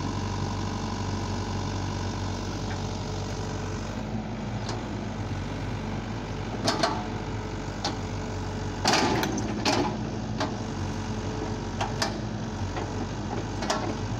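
Diesel engine of a SANY compact hydraulic excavator running steadily under work as it digs. In the second half several sharp clanks and knocks come from the arm and bucket working the soil, the loudest a little past the middle.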